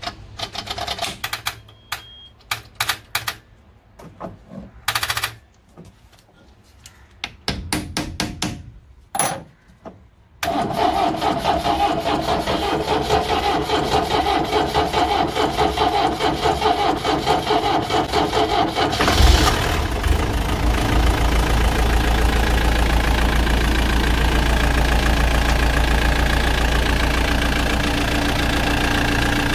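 Force Traveller van's diesel engine being cold-started on starting fluid after standing for a long time: a few clicks and short bursts, then the engine catches about a third of the way in and runs steadily without much cranking. About two-thirds in its sound gets deeper and louder.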